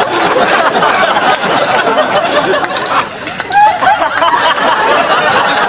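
Indistinct chatter of many voices with some laughter mixed in, a continuous crowd murmur with no single clear speaker.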